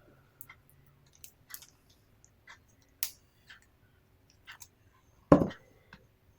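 An iPad box and its packaging being handled: scattered small clicks and rustles, a sharper click about three seconds in, and a louder knock about five seconds in.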